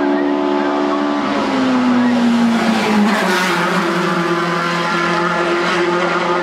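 Hillclimb race car engine at high revs, its pitch falling as the car passes close about halfway through, then a steady high engine note.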